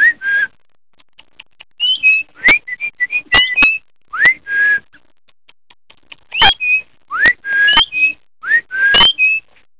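Galah (pink-and-grey cockatoo) calling in a series of short whistled notes, many of them quick rising glides ending on a brief held note, over a raspy screech. Several sharp clicks fall among the calls.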